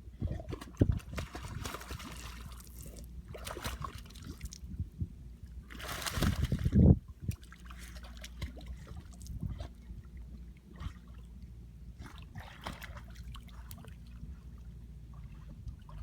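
Pit bull puppy swimming in a pond, its paddling making irregular bursts of splashing and sloshing water, the loudest about six to seven seconds in, over a steady low rumble.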